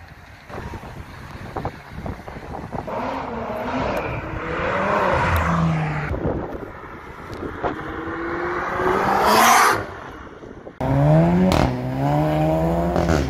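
Car engines accelerating hard past the listener, revs climbing to a loud peak about nine seconds in. After a sudden cut, another engine revs up.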